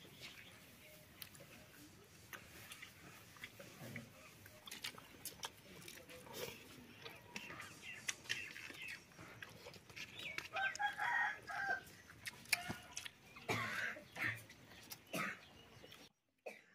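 Domestic chickens calling in the yard, the loudest and longest call about two-thirds of the way in, over scattered small clicks and taps.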